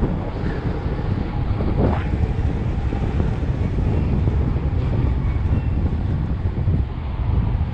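Steady wind noise buffeting the microphone of a camera riding on a moving electric skateboard, a low rumble throughout.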